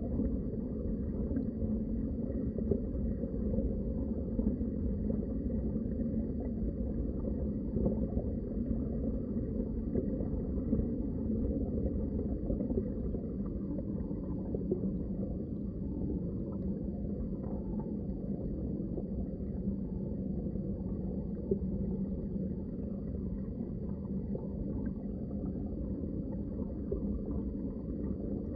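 Underwater ambience: a steady, muffled low rumble of water with faint gurgling.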